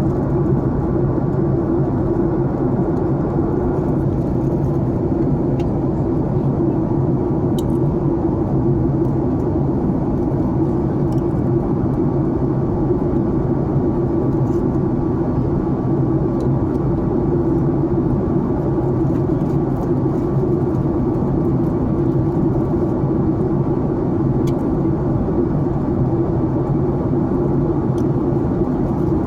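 Steady airliner cabin noise in flight: the drone of the engines and rushing air, even and unbroken, with a faint steady hum on top.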